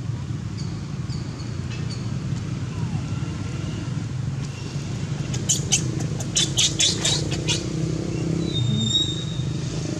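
A quick run of about eight short, sharp, high chirps over a steady low outdoor rumble, with a few thin whistled notes near the end.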